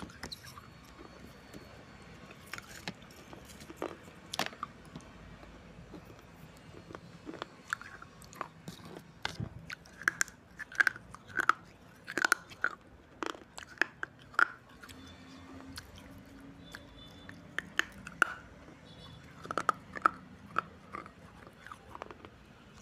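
Crunching and chewing on shards of a baked red clay surai (water pot) coated in red clay paste. Sharp, irregular snaps come as pieces are bitten, thickest between about ten and fifteen seconds in and again around twenty seconds.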